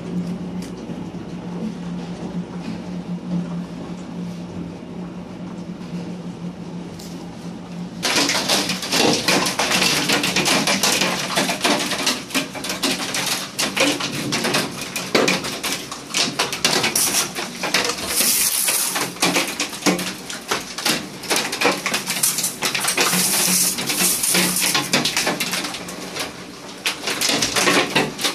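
Hailstones clattering densely and rapidly on hard surfaces. The first several seconds are quieter, with a steady low hum under the patter. About eight seconds in the sound jumps abruptly to a loud, continuous hammering of hail.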